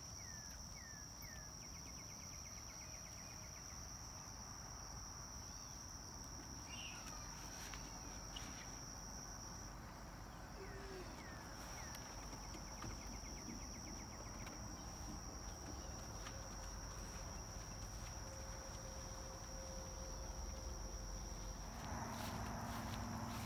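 Crickets trilling in a faint, steady high-pitched drone, stronger for the first ten seconds or so and then fainter, with a few short bird chirps. A louder rustling noise comes in near the end.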